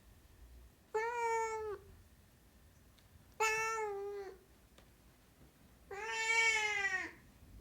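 Domestic cat meowing three times, each meow a steady pitched call of about a second that dips slightly at the end; the third is the longest.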